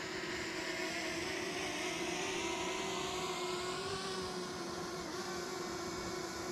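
A DJI Mavic Mini 2 quadcopter's propellers whirring steadily as it flies, a humming whine that shifts a little in pitch as the motors adjust.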